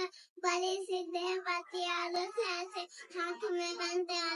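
A young girl singing in a high voice, short held phrases with brief breaks between them.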